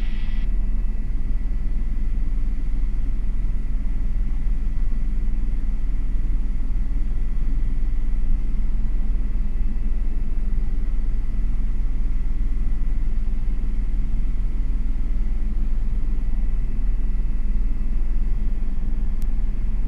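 Steady cabin noise of an Airbus H125 (AS350 B3e) helicopter in level flight: a heavy, even rumble with a steady hum and a faint thin high whine running through it.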